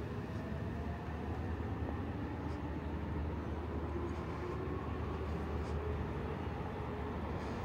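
A passing vehicle: a steady low rumble with a faint whine that rises slowly in pitch.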